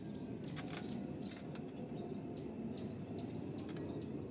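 Outdoor ambience: a steady low background hum with small birds chirping briefly again and again, and a few faint clicks.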